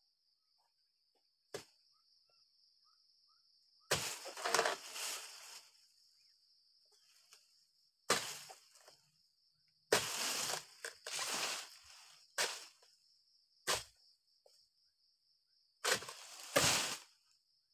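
Dodos chisel on a pole chopping into oil palm frond bases with sharp single strikes, and several times a cut frond crashes down through the leaves with a rustle lasting a second or so. A steady high insect drone runs underneath.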